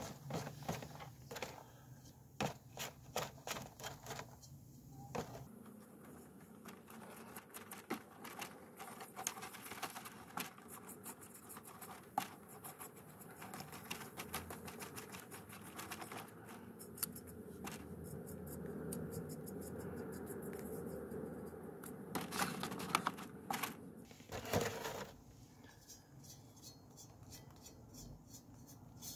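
A stiff brush working a descaling solution over a tarnished metal dish and its hinged lid: many light taps and clicks of the bristles and handle against the metal, with a steadier wet scrubbing in the middle and a few louder knocks near the end.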